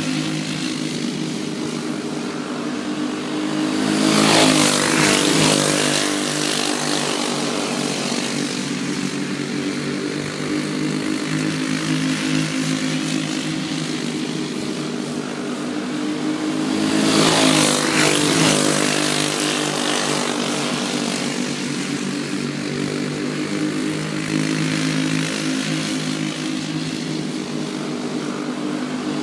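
Several racing go-karts' small engines running hard around the track in a steady buzz. Twice, about four seconds in and again some thirteen seconds later, the pack passes close by, growing louder, with the pitch dropping as it goes past.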